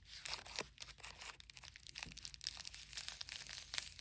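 Packaging being handled and opened by hand: crinkling and rustling with a quick run of irregular crackles and small clicks.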